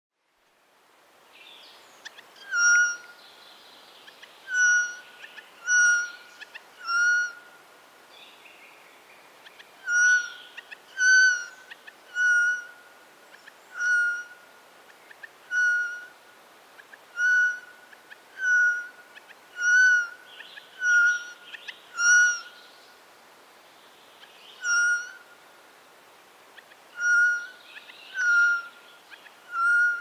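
Eurasian jay (Garrulus glandarius) calling: a long series of short, clear, pitched calls, each under half a second. They come about one every one to two seconds, with a few longer pauses.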